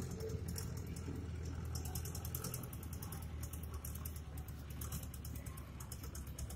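Farm tractor's diesel engine running as it drives past towing a tillage implement: a steady low drone with a fast, even rattling clatter over it.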